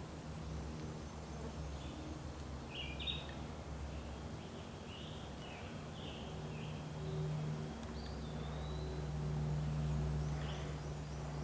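Small birds chirping in short, scattered calls over a low, steady hum that swells for a few seconds in the second half.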